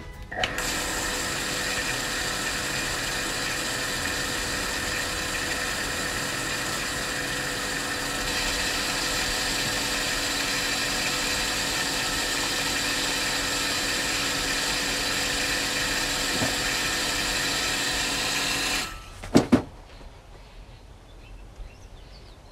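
A 0.37 kW peripheral booster pump starts and runs steadily with a whine of several fixed tones, then cuts out suddenly about 19 seconds in. Two sharp clicks follow.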